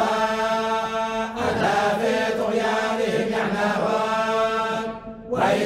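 A group of men chanting the Quran in unison in the Moroccan collective style of the Warsh reading. Long held notes, with a short break near the end.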